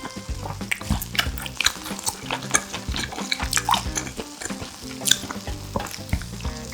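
Close-up eating sounds of grilled pork intestine (makchang): chewing with many quick, wet, crackling clicks.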